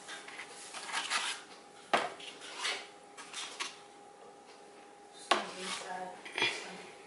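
Things being handled and set down on a wooden tabletop: paper rustling and irregular knocks, with two sharp clacks about two and five seconds in, over a faint steady hum.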